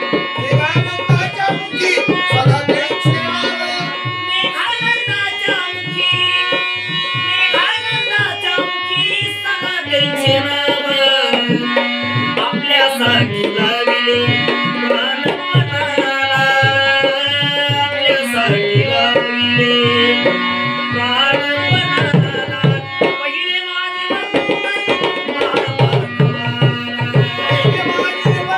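Instrumental interlude of a Marathi devotional song: tabla playing a fast, steady rhythm under a melody line. The music drops out briefly near the end, then resumes.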